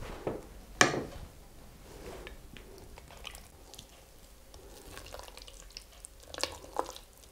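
Apricot pieces being stirred into curd cream in a mixing bowl: soft wet squelching, with a few light knocks of the utensil against the bowl, the sharpest about a second in.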